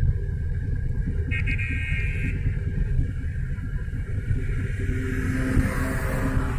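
Steady low road and engine rumble of a car driving on a highway, heard from inside the car. About a second in a brief high tone sounds for about a second, and near the end an oncoming car passes with a rising whoosh.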